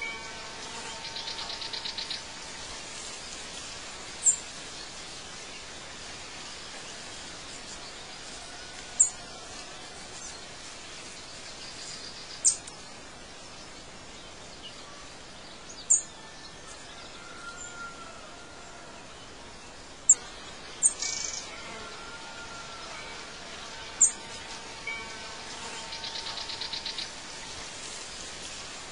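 Birdsong: short, sharp high chirps every three to four seconds, a few soft whistled calls, and a rapid buzzing trill near the start and again near the end, over a steady hiss.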